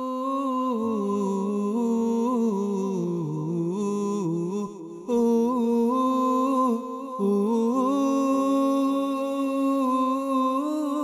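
Unaccompanied devotional nasheed: a single voice humming a slow, wordless melody in long held notes, with brief pauses about five and seven seconds in.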